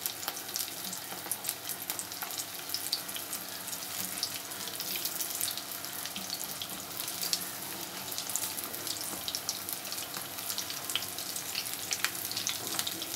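Potato balls deep-frying in oil in a karahi: a steady sizzle with dense fine crackling as the oil bubbles around them.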